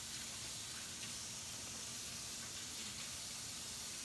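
Kitchen tap running steadily into a sink as hands are washed under it, a soft even hiss.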